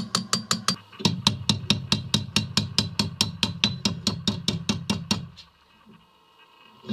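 Hand hammer striking a red-hot steel katana blank on a steel anvil block: quick, even blows about five a second, with a short break about a second in. The hammering stops about five seconds in.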